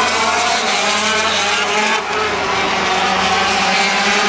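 A pack of 250cc two-stroke Grand Prix racing motorcycles passing at high revs, several engines overlapping, their pitches rising and falling through the gears. There is a brief dip in level about two seconds in.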